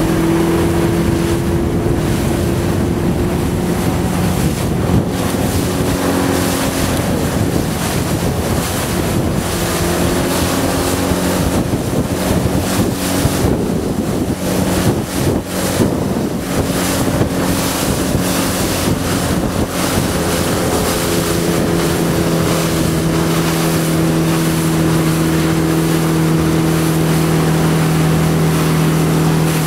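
A motorboat engine running steadily. Its hum drops a little in pitch through the middle and then settles again, over wind buffeting the microphone and the wash of water.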